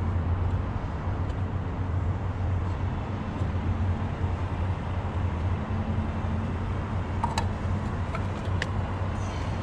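Steady low rumble of an idling engine, with a few light clicks near the end.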